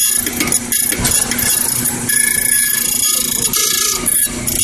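Key duplicating machine running with a steady whine and hum, with a few short scraping sounds as its cutter works along the key.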